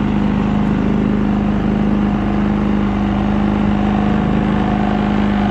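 Engine running at a constant speed: a loud, even drone whose pitch never changes.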